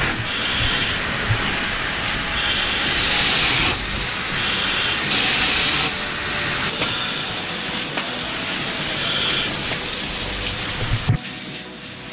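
Loud, steady rushing hiss that swells and eases every second or so, cutting off abruptly near the end.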